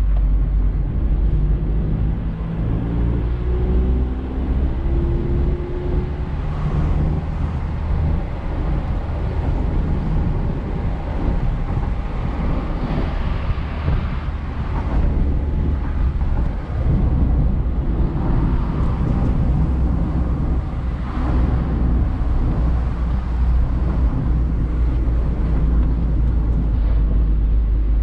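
Mazda MX-5 Miata engine running steadily while driving, mixed with tyre and wind noise heard from the driver's seat with the roof down. The engine note rises a few seconds in.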